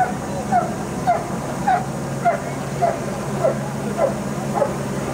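A dog barking steadily and evenly, about one bark every 0.6 seconds, over a steady low hum.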